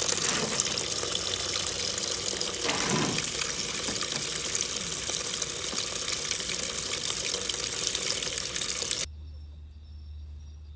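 Water running and splashing steadily, like a tap running into a sink, cutting off suddenly about nine seconds in and leaving a low hum.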